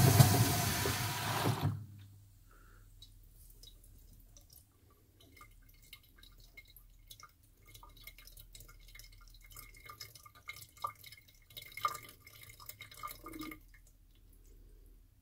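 Speed Queen top-load washer's spin running with a steady hum, then stopping about two seconds in. After that, faint dripping and trickling as water from the fabric softener dispenser runs down the agitator into the drum of wet towels, the drips a little busier near the end.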